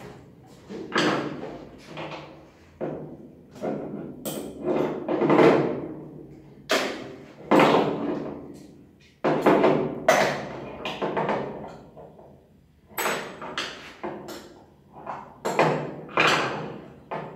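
Irregular knocks and thuds, about one a second, each ringing out briefly: revolver parts and the steel frame being knocked against a wooden worktable during disassembly.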